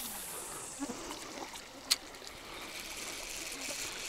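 Shallow river water rippling and trickling over pebbles at the bank, a steady hiss, with a single sharp click about two seconds in.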